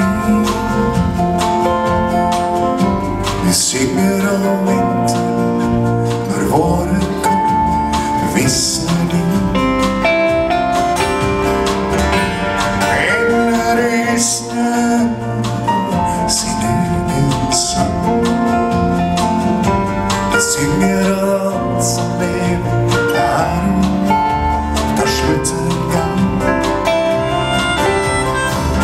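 Live band playing a slow country-style song, with guitars over keyboards, bass and drums.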